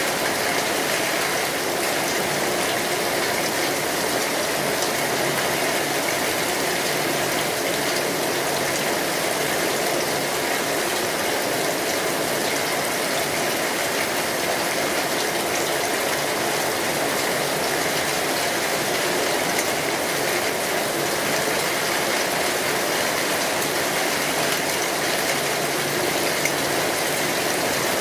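Steady rain falling on an umbrella canopy overhead: a dense, even hiss of countless drops hitting the fabric, with no let-up.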